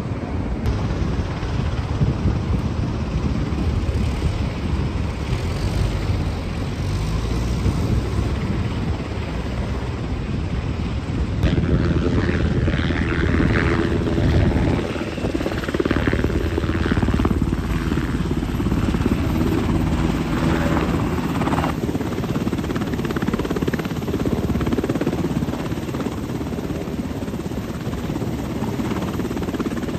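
MH-60R Sea Hawk helicopter's twin turbines and rotor running in a low hover, a steady heavy rumble with a thudding blade beat that grows louder about a third of the way in.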